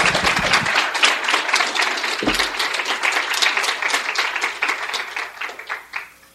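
Audience applauding at the end of a lecture: many hands clapping at once, thinning out near the end and stopping about six seconds in.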